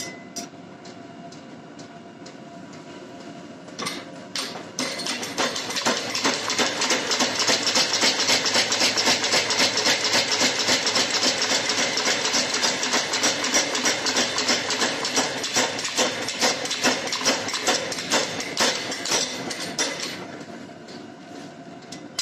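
Power hammer forging a hot Damascus steel billet: a few single blows about four seconds in, then a long run of rapid, even blows that stops about two seconds before the end. A steady machine hum runs under it before and after the blows.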